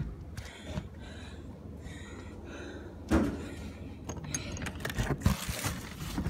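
Rustling and handling noise, a thump about three seconds in, then a run of clicks and a rattle as an interior door with a metal knob is handled.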